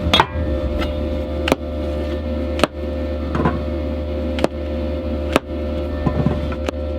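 Diesel heater buzzing steadily with a low hum and a constant mid-pitched tone. Sharp, irregular knocks come every second or so over it.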